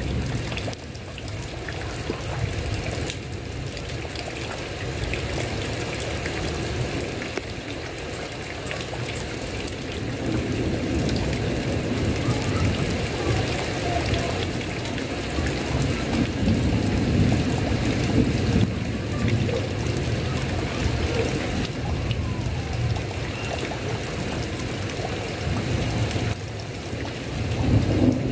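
Steady heavy rain falling on a tile roof, pouring and trickling, with a low rumble of thunder swelling in the middle and again near the end.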